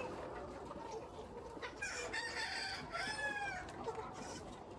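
Free-range chickens clucking, with a rooster crowing once about two seconds in, a long call of nearly two seconds that falls off at the end.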